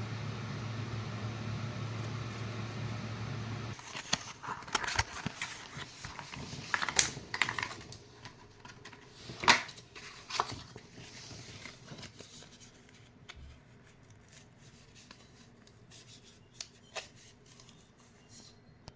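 A steady low hum that cuts off abruptly about four seconds in, followed by irregular clicks, scrapes and rustles of small objects being handled close to the microphone. The handling thins out and grows quieter in the second half.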